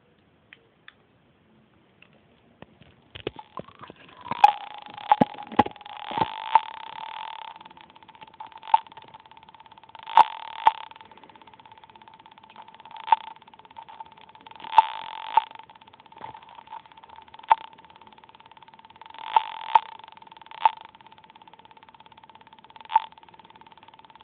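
Circuit-bent talking alarm clock sounding through its small speaker. After a few faint clicks, a steady electronic beep-like tone comes in about four seconds in. It is broken all the way through by irregular loud crackling clicks and short bursts of buzzy glitch noise.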